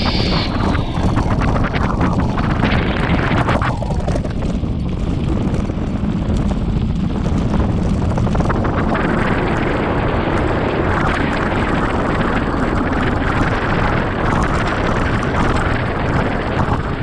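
Wind buffeting the camera microphone over the rumble of mountain bike tyres on a gravel and dirt track, with the bike rattling over loose stones.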